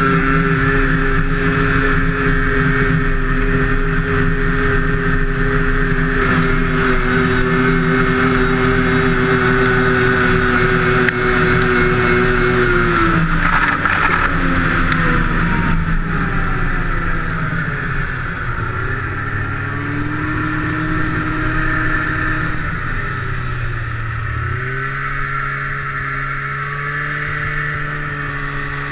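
Two-stroke snowmobile engine running at high, steady revs. About halfway through its pitch falls away over several seconds and settles lower. Near the end it climbs again.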